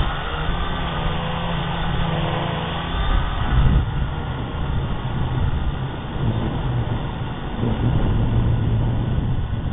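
Syma quadcopter's motors and propellers buzzing as picked up by its onboard camera, the whine shifting in pitch as the throttle changes.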